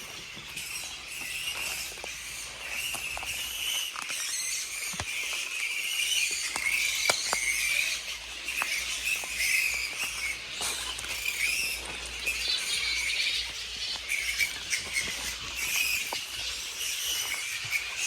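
A roosting colony of flying foxes (large fruit bats) in the trees, giving a chorus of many overlapping high-pitched squeals and chatter.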